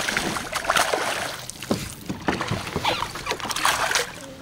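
A hooked bass thrashing at the surface beside the boat: a run of loud, irregular splashes that stops suddenly about four seconds in, as the fish is lifted from the water by its jaw.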